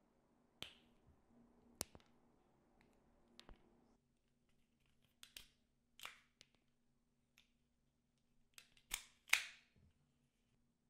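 Sharp clicks and snaps of hand tools cutting and stripping thin red and black wire, the stripping done with a self-adjusting wire stripper. There are three single clicks, then after a short gap a run of further clicks, the loudest two close together near the end.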